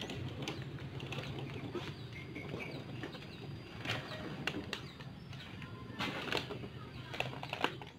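Outdoor ambience by an urban lake: a steady low hum under scattered clicks and taps, with a few short bird chirps about two and three seconds in.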